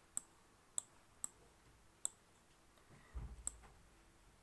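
Computer mouse button clicking five times at uneven intervals as a document page is dragged with the hand tool, with a brief soft low thump a little after three seconds in.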